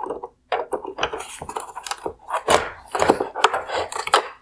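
Gloved hands working a plastic wire harness clip loose inside a car's LED headlight housing: a busy run of plastic clicks, scrapes and rustles.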